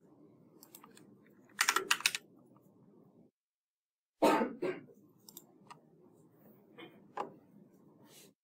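Typing on a computer keyboard: a quick burst of keystrokes about a second and a half in, a louder key strike around four seconds, then a few scattered clicks.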